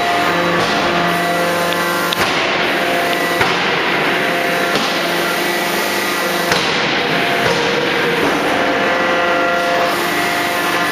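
Hydraulic closed die forging hammer working: a few sharp blows, irregularly spaced, over a loud, steady machinery drone with several held tones.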